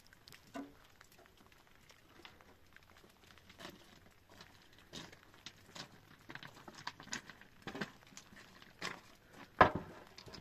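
Dry branches and twigs clattering and cracking against each other as they are gathered up and carried, with footsteps on loose stones. A sharper, louder knock comes near the end.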